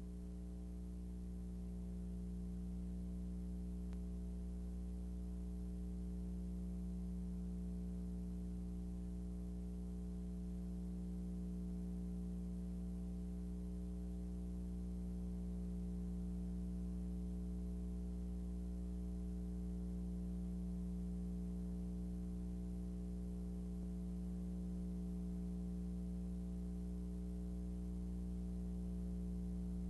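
Steady electrical mains hum, a low buzz with a ladder of overtones over faint tape hiss, unchanging throughout; no race sound or commentary is heard.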